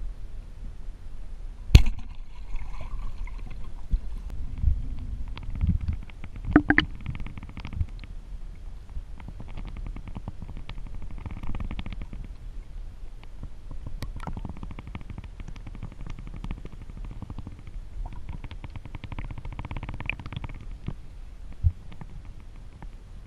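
Underwater sound heard through a diving camera: a low rumble of moving water with bursts of crackling and a few sharp knocks, the loudest about two seconds in.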